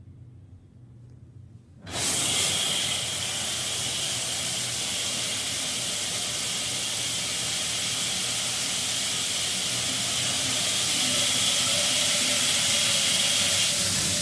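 Ceiling-mounted rain shower head turned on about two seconds in, water spraying steadily onto the tiled wall and floor in a loud, even rush.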